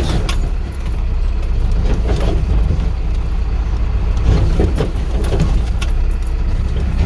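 A vehicle driving on a rough dirt road, heard from inside: a steady low rumble of engine and road, with scattered knocks and rattles.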